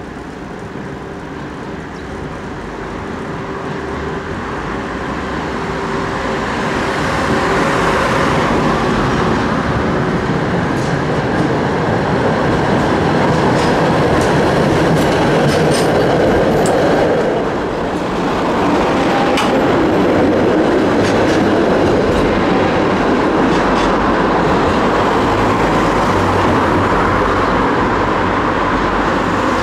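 Tram running past on street track: its rolling noise swells over the first several seconds, then stays loud, with a run of sharp wheel-on-rail clicks through the middle.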